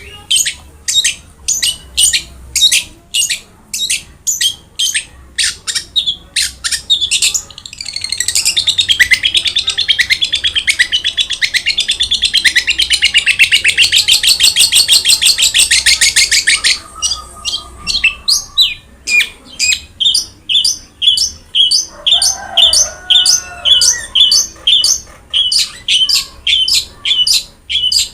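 Long-tailed shrike (cendet) singing loudly: a run of sharp high notes repeated about two to three times a second. A little past a quarter of the way in it breaks into a fast, dense chatter lasting about eight seconds, then returns to the repeated notes.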